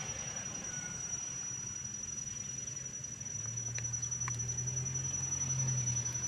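A steady low hum that grows louder about halfway through, with a constant thin high-pitched whine and a few faint ticks.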